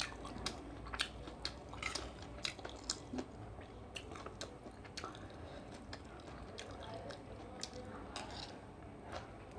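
A person eating seafood fried rice close to the microphone: chewing, with frequent short crisp clicks and crunches, busier in the first half.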